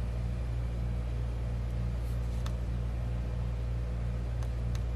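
Steady low electrical hum of room tone, with a few faint clicks from a vape box mod being handled.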